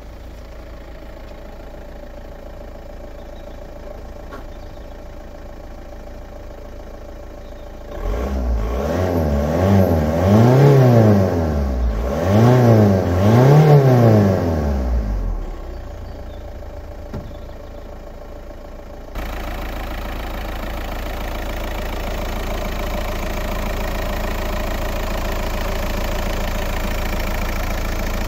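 Volkswagen Jetta Mk5's 1.9 TDI (BKC) four-cylinder eight-valve turbodiesel idling. About eight seconds in it is revved up and down a few times over some seven seconds, then falls back to idle. From about two-thirds of the way through, the same diesel idles steadily and louder, heard close up at the open bonnet.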